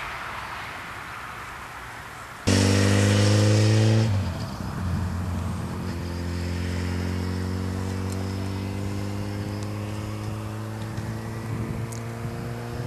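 A steady hiss, then about two and a half seconds in a motor engine cuts in suddenly, running with a steady low hum whose pitch slowly rises.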